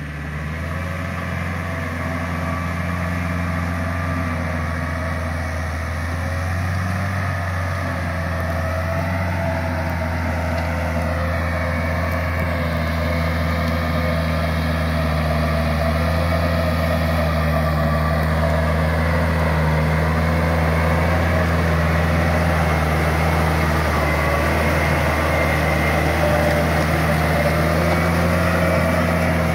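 Compact diesel farm tractor running steadily at an even pitch while it pulls a rotary tiller through a flooded rice paddy, growing slightly louder toward the end.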